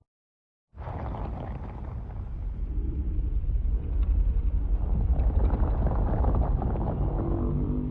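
Deep, rumbling monster sound effect. It starts abruptly after a short silence and swells louder about four seconds in.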